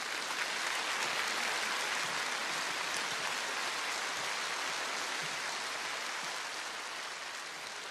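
Large concert-hall audience applauding: steady massed clapping that eases slightly near the end.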